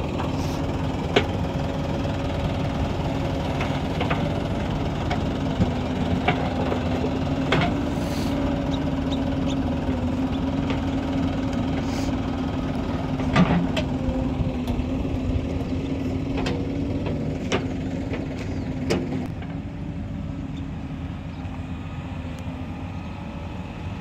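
Diesel engines of a JCB 3DX backhoe loader and a tractor running steadily while the backhoe loads soil into the tractor's trolley, with a handful of sharp knocks along the way.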